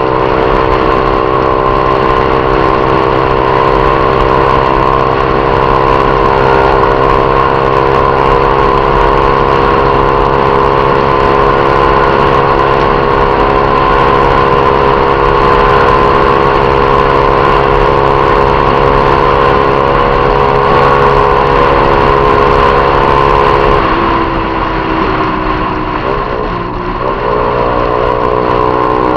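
Honda CG Titan 150 motorcycle's single-cylinder four-stroke engine, fitted with a Viúva Negra aftermarket exhaust, running at a steady engine speed on the move. Near the end the note drops in pitch and gets quieter, as when coming off the throttle, then picks back up.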